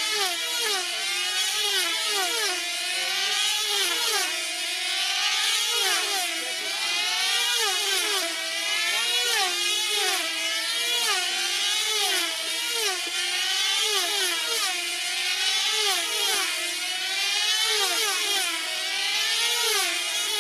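Several F2C team-race control-line model aircraft, each with a small 2.5 cc diesel engine, running flat out as they circle. The high engine note rises and falls in pitch with every lap as each model sweeps past, about once every one and a half to two seconds, with the notes of the different models overlapping.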